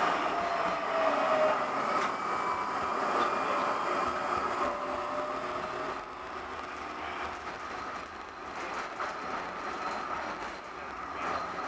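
Running noise of a Turin 7000-series bidirectional tram heard from inside its cab: a steady rumble of steel wheels on street rails, with a whine that falls in pitch over the first second or so. The sound eases off a little about halfway through.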